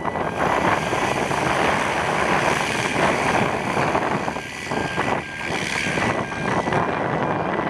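Propeller engine of a low-wing single-engine light aircraft running steadily as the plane rolls away down the runway.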